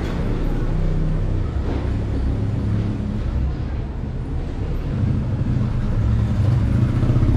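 A motor vehicle engine running with a steady low rumble that rises and falls slightly.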